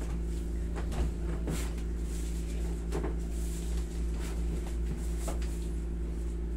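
Steady low hum, with a few soft knocks and rubbing sounds from hands massaging a leg on a vinyl massage table.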